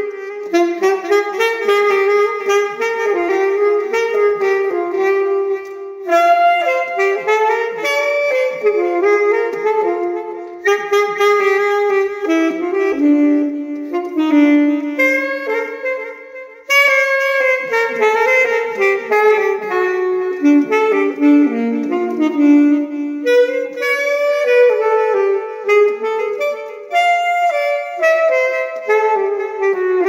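Bebop jazz recording with saxophone to the fore, playing quick runs of short notes. The playing drops away briefly about halfway through and then picks up again.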